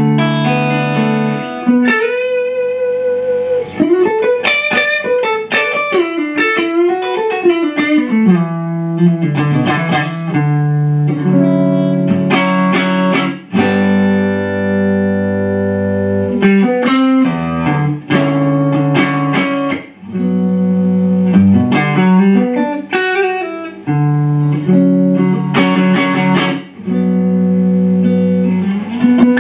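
Macmull Stinger electric guitar played through a Strymon OB.1 optical compressor, switched on, into a Marshall JCM 2000 DSL amp. It plays a lead phrase of single notes and chords with string bends and held, sustaining notes.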